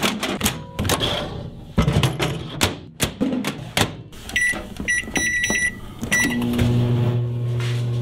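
Microwave oven being loaded and started: knocks and clatter of handling, then a quick run of short high keypad beeps, and about six and a half seconds in the oven starts running with a steady hum.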